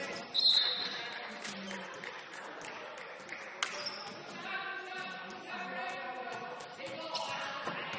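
Basketball game sounds: a short referee's whistle blast about half a second in, a basketball bouncing with a sharp smack about three and a half seconds in, and players' voices throughout.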